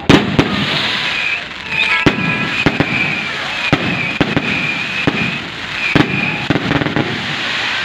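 Aerial fireworks exploding: a string of sharp bangs, one after another, over continuous crackling. A high tone sounds again and again in short pulses through the middle of the volley.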